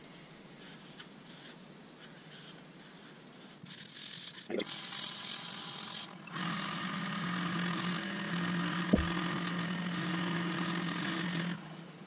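Nova DVR Saturn wood lathe starting up a few seconds in and running with a steady motor hum, while a cloth charged with abrasive wax paste is held against the spinning wood-and-resin vase with a continuous hiss of rubbing; there is one sharp click partway through, and lathe and rubbing stop just before the end.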